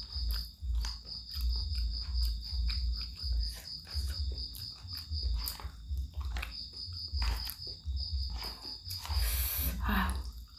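Close-miked eating of laksa: repeated low thuds of chewing with small clicks, and a short slurping hiss about nine seconds in. A high, steady pulsing trill runs underneath, breaking off briefly a couple of times.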